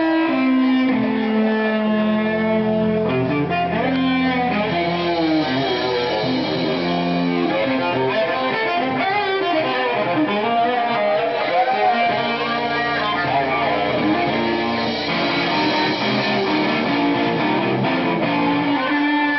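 Live band playing: a cello bowed in long held notes together with electric guitar.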